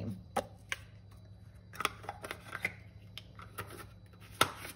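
A plastic lid twisted onto a cream jar and the jar handled and set aside: scattered light clicks and taps, with one sharper knock about four and a half seconds in.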